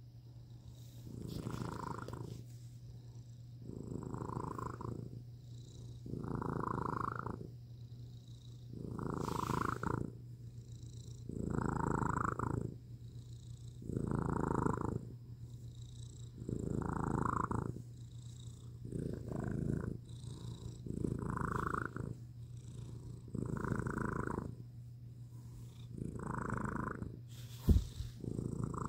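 Domestic cat purring steadily while being stroked, the purr swelling and fading in a regular cycle about every two and a half seconds. A brief sharp thump near the end.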